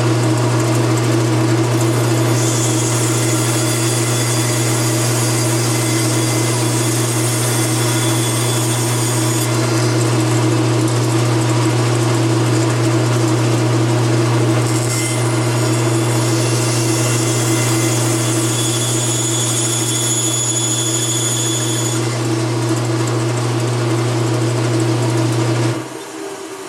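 Bandsaw running with a steady low hum while it makes two cuts through the wooden box blank, each several seconds long, trimming its ends. The hum stops near the end.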